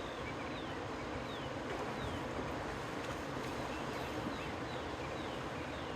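Outdoor background: a steady rushing noise with faint, short, falling chirps about every two-thirds of a second.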